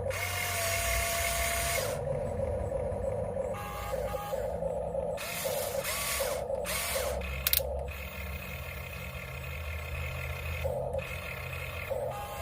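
Small electric motor and gears of a toy crane whirring in short runs, starting, stopping and changing pitch as it is worked up, down, left and right, with one sharp click about seven seconds in.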